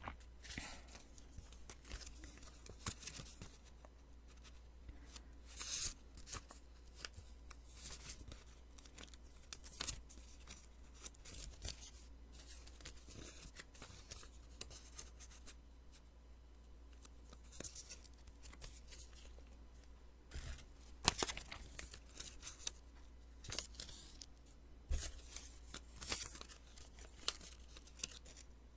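Post-it notes being peeled off one after another, the adhesive strip tearing away from the paper in short crackly strokes at irregular intervals, close to the microphone.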